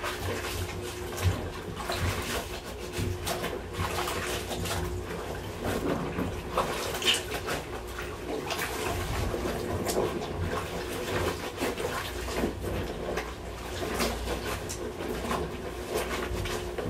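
Laundry being hand-washed in a basin of soapy water: wet fabric scrubbed and rubbed together by hand, with irregular splashing and sloshing of water.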